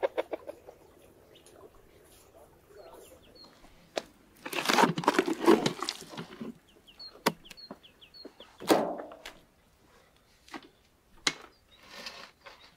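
A shovel scraping and chopping through wet clay mix in a trough, with a long rough scrape about halfway through and a few sharp knocks after it. Faint short bird chirps come between them.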